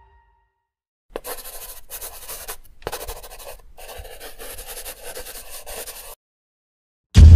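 Pen-on-paper scratching sound effect, in scratchy strokes with short breaks, as a signature is written out. After a moment of silence, a sudden loud deep boom hits near the end.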